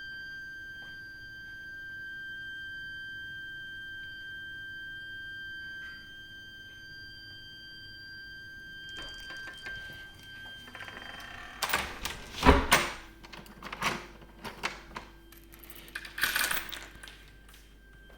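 Heat interface unit and heating pipework giving off a steady, shrill, high-pitched whistle, the sign of an ongoing abnormal fault in the heating system. The whistle stops about ten seconds in. A run of knocks and clatter follows, the loudest a sharp thump, and the whistle comes back faintly near the end.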